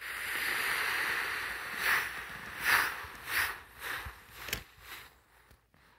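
Lego train's plastic wheels rolling along plastic Lego track, the train pushed by hand: a rolling rush that starts suddenly, then comes in several shorter surges that fade away, with a sharp click about four and a half seconds in.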